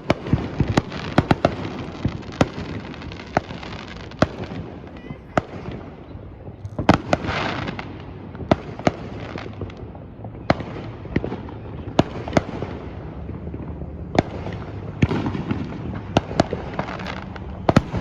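Fireworks going off all around: many sharp bangs at irregular intervals, with a burst of dense crackling about seven seconds in.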